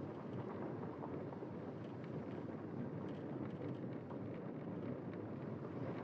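Steady low rumbling noise with faint scattered crackles, even throughout.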